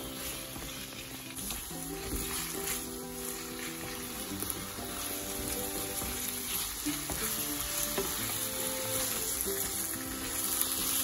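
Marinated mutton sizzling in hot mustard oil and masala in an iron kadhai, stirred and turned with a wooden spatula as it browns on a high flame. Soft background music plays underneath.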